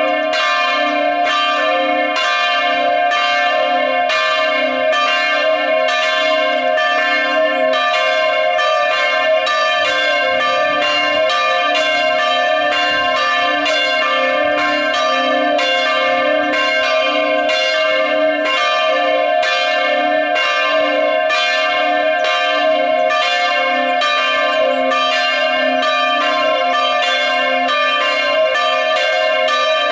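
Chapel bells ringing all together in full peal (plenum). The strokes overlap in a steady, even stream with long ringing tones, with no pause or change.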